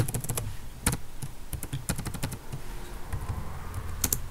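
Computer keyboard being typed on: irregular, scattered keystroke clicks, with louder keystrokes at the start, about a second in and near the end.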